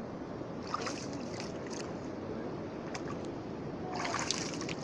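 Hands digging through wet sand and shell grit in shallow seawater: small sloshes and splashes with a few sharp scrapes, and a louder splash about four seconds in, over a steady rushing background noise.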